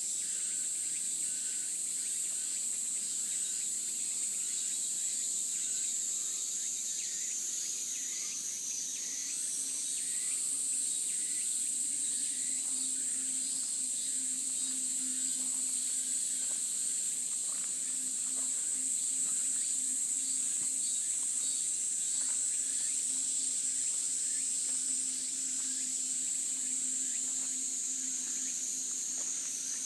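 Cicadas singing in a continuous, steady high-pitched drone; the pitch steps up slightly about nine seconds in.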